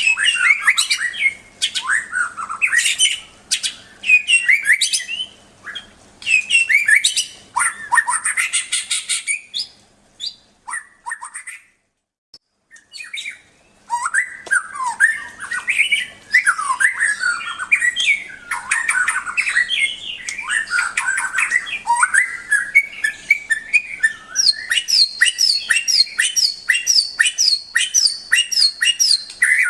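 A murai songbird singing a loud, varied song of whistled sweeping phrases and harsh chatter, with a pause of a second or two about halfway through. Near the end it breaks into a fast, evenly repeated series of high notes.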